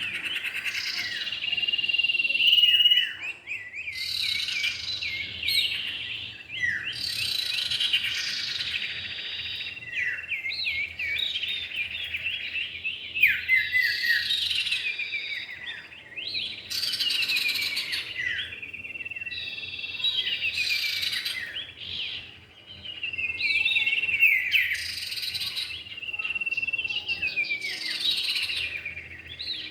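Common iora (cipow) lure call of a male and female bird: rapid chirps and quick falling whistles, repeated in phrases every few seconds.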